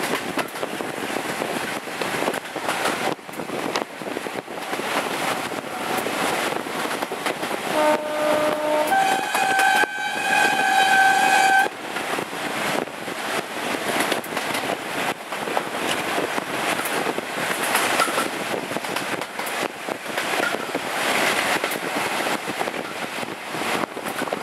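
British Rail Class 52 'Western' diesel-hydraulic locomotive on the move, heard from its cab window, with steady wind and wheel-on-rail noise. About eight seconds in its two-tone horn sounds: a short low note, then a higher note held for nearly three seconds that cuts off suddenly.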